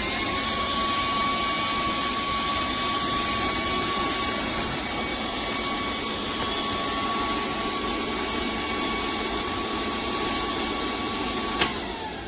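TOAUTO A1X portable high-pressure PCP air compressor running: its motor holds a steady whine over a loud hiss. Near the end a sharp click sounds and the whine drops in pitch as the motor winds down.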